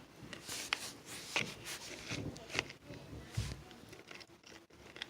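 Shampoo-and-salt slime being stirred in a container with a mixing tool: soft, irregular scraping with scattered light clicks of the tool against the container.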